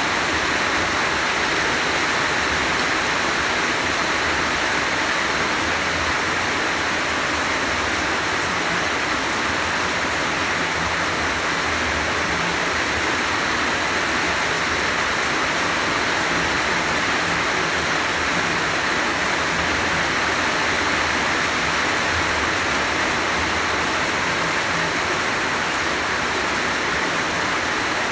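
Heavy rain falling steadily in a continuous dense hiss.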